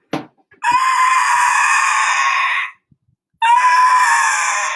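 An elephant trumpeting twice: one long call of about two seconds, then after a short gap a second call.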